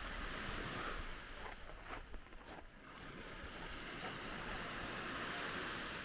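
Sea waves washing onto the beach, the wash easing off about two and a half seconds in and then building again.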